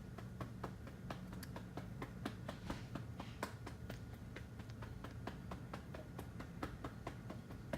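Rapid, uneven light clicks or taps, several a second, over a faint low steady hum.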